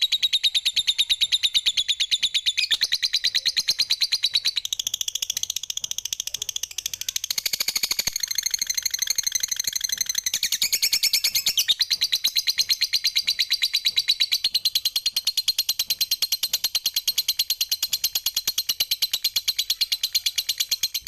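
Fischer's lovebird singing a long unbroken ngekek: a rapid, high-pitched chattering trill of many notes a second that runs on without a pause, its pattern shifting a little a few times along the way.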